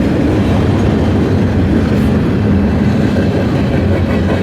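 Freight train rolling past: a steady, loud rumble of wheels on the rails with a low hum underneath.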